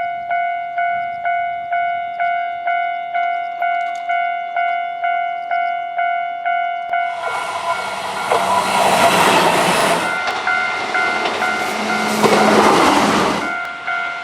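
Level crossing's electronic warning bell ringing steadily at about two and a half strikes a second. About seven seconds in, a Keihan electric train runs through the crossing, its rushing wheel-on-rail noise swelling twice over the bell before cutting off sharply near the end.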